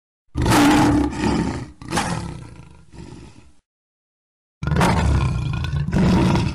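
The MGM logo's lion roar, in two roars. The first is long, surges again partway through and fades out. After a pause of about a second comes the second, which cuts off abruptly.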